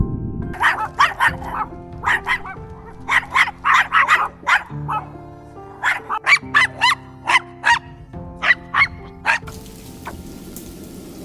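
Dog barking in quick runs of short, high yaps, about two dozen in all, over background music. The barking stops about two seconds before the end.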